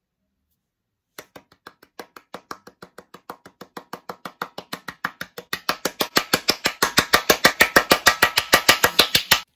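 Hand claps, starting about a second in as a slow string of sharp claps that speeds up and grows louder into a fast run, then stops suddenly near the end.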